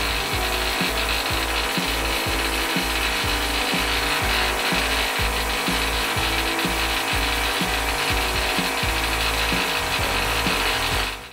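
Compressed-air spray gun hissing steadily as it sprays varnish, with a low rhythmic pulsing underneath; it cuts off suddenly near the end.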